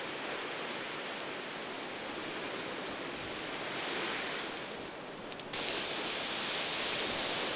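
Wildfire burning through dry grass and brush: a steady rushing roar with a few faint crackles. About five and a half seconds in it turns abruptly louder and harsher as a tree goes up in flames.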